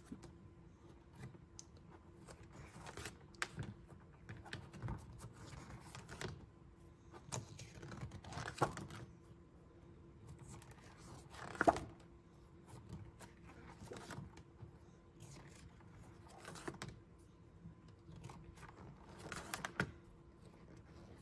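Pages of a spiral-bound paper desk calendar being turned by hand: faint, scattered paper rustles and flicks, the loudest about halfway through.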